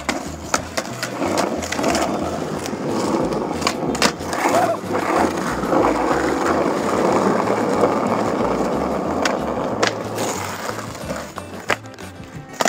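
Skateboard wheels rolling over rough asphalt, a steady gritty rumble, with several sharp board clacks from pops and landings, one near the start and one near the end. Background music with a low bassline underneath.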